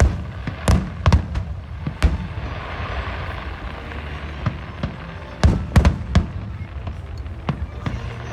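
Aerial fireworks bursting: a run of sharp bangs near the start and another cluster about five to six seconds in, with a fizzing crackle between them.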